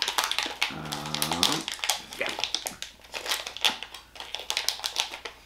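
A plastic snack wrapper crinkling and crackling as it is picked and pulled at by hand, trying to tear it open. About a second in there is a short, low pitched hum.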